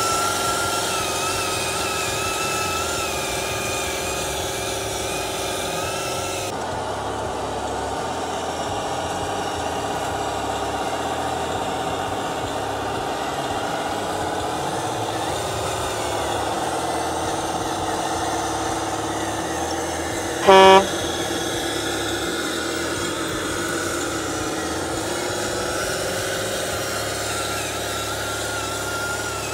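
Engine sound of an RC MAN log truck running steadily, its pitch dipping and recovering a few times, with one short truck-horn blast about two-thirds of the way through.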